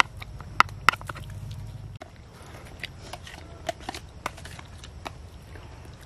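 A metal spoon and plastic food containers clicking and tapping now and then as people eat, over a low steady rumble that drops away about two seconds in.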